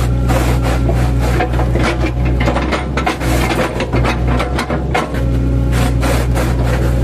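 Mini excavator engine running steadily under load while it chops and scrapes a felled oil palm trunk, with dense, irregular crackling and splintering of the fibrous wood.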